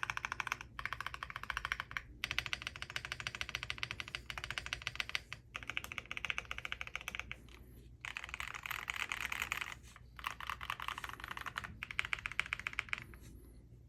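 Typing on a Haven TKL mechanical keyboard with Endless Summer switches, an FR4 plate, no PE foam and PBT keycaps. The keys clack rapidly in runs broken by short pauses, and the typing tails off near the end.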